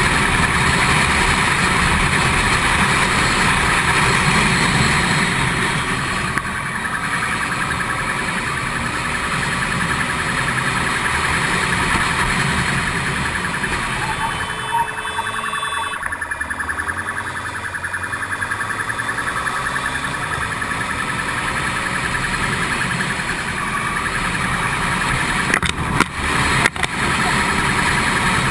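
Police siren sounding continuously over vehicle noise, with a few sharp clicks near the end.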